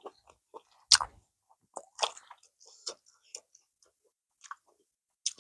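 Close-miked mukbang eating sounds: chewing and wet mouth clicks and lip smacks from a mouthful of banku with okra stew, in short irregular bursts. The loudest smack comes about a second in and another near the end.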